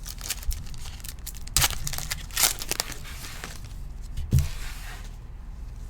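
Trading-card pack wrapper crinkling and tearing as it is opened, with cards rustling in the hands and a soft thump about four seconds in.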